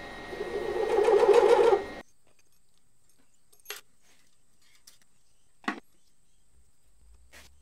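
Milling machine cutter boring into a metal index plate, the cutting noise growing louder over about two seconds with a fast rattling chatter, then stopping abruptly. Three faint clicks follow.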